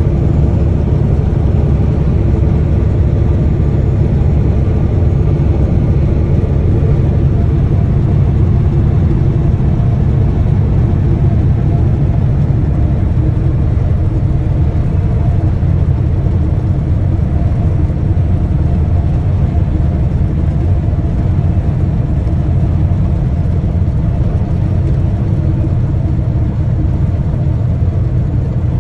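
Semi-truck's diesel engine and tyres running at a steady highway cruise, heard from inside the cab as a loud, unchanging low drone.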